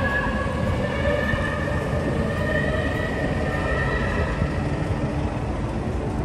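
Noise of a street rally on the next street: long, drawn-out pitched tones over a steady low rumble of city traffic.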